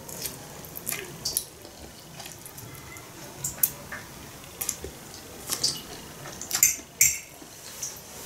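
Noodles being slurped from a fork and chewed, in a string of short wet slurps, with light clicks of a fork against a bowl.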